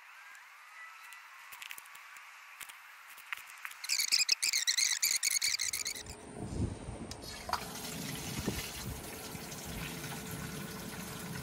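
Rain-barrel water running through a garden hose into a plastic watering can: a steady trickle that starts about six seconds in. Just before it comes a loud, rapid rattling chatter lasting about two seconds.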